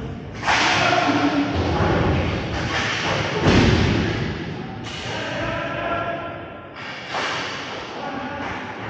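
Inline hockey play in an arena: a run of thuds and slams from puck, sticks and players hitting the boards, echoing in the hall, with faint shouting. The loudest is a heavy thud about three and a half seconds in.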